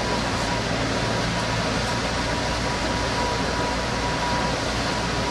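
Interior noise of an old Toronto streetcar: an even rumble and hiss with a thin steady tone above it.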